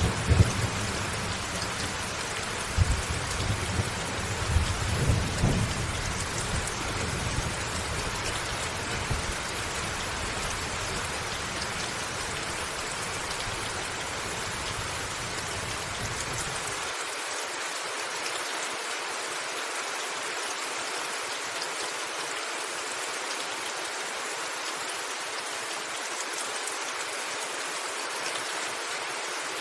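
Steady rain pattering on a rooftop, with thunder rumbling through the first few seconds and dying away. About seventeen seconds in, the low rumble cuts off suddenly, leaving only the even hiss of the rain.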